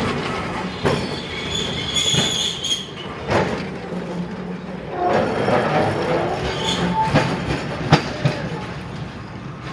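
Vintage electric tram rolling slowly over the depot yard's points and crossings: steel wheels give several sharp clacks over the rail joints, with brief squeals from the wheels on the curves.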